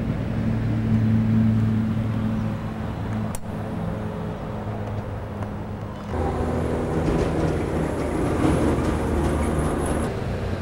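Low steady motor hum over outdoor background noise, like a vehicle engine or road traffic. The sound changes abruptly about three and a half and six seconds in. After the second change it becomes a broader rushing noise with a faint high whine.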